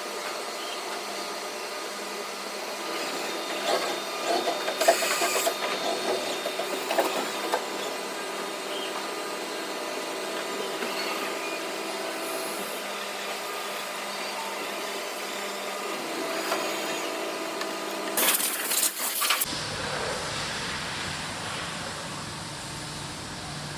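Five-axis CNC milling machine running, with a steady mechanical whine of several fixed tones and louder rough spells of cutting noise a few seconds in and again near the end. The sound changes abruptly near the end, when a low hum joins in.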